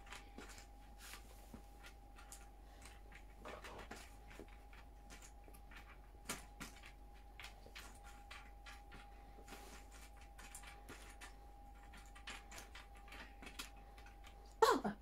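Faint, irregular small clicks and taps of cardboard jigsaw puzzle pieces being handled and sorted, one a little louder about six seconds in, over a faint steady hum.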